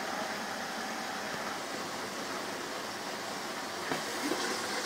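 Steady hiss from a pan of chicken curry simmering on a gas burner, with a few light clicks near the end.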